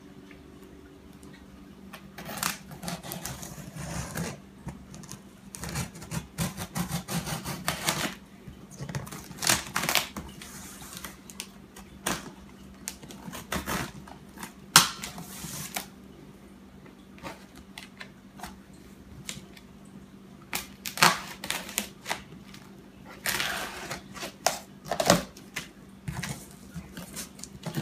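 A small knife cutting and scraping along packing tape on a cardboard shipping box, with the tape pulled and peeled back and the cardboard knocking and rustling, in irregular clicks and scrapes.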